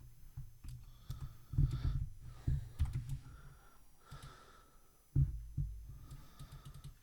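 Typing on a computer keyboard: irregular clusters of keystroke clicks with pauses between them.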